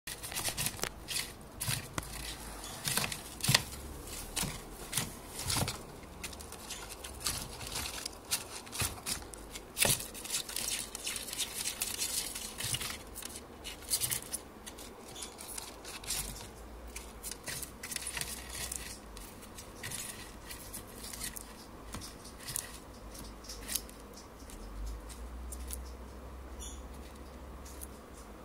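Schneider's skink chewing a dubia cockroach: irregular crunching clicks as the roach's shell breaks. They come thick and fast at first and thin out in the second half.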